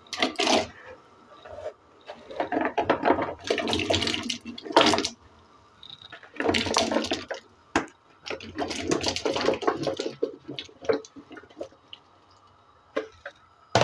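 Peeled potato pieces dropped and tipped into an aluminium pot of water, splashing in several separate bursts.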